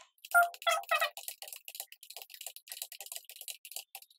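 Rapid computer keyboard typing: a fast, even run of key clicks, with a brief pitched squeak in the first second.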